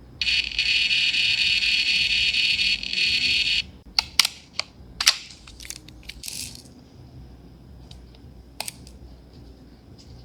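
Thermal label printer feeding and printing a label: a steady high buzzing of its motor for about three and a half seconds. This is followed by several sharp clicks and a brief rustle as the label is handled.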